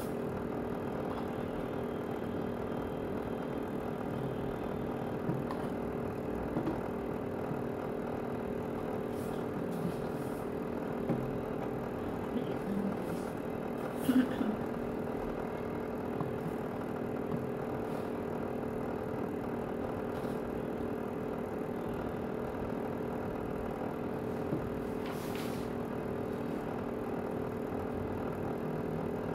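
A steady, unchanging hum with a few light clicks and one sharper knock about halfway through, as a Tefal garment steamer's telescopic metal pole is worked into its base.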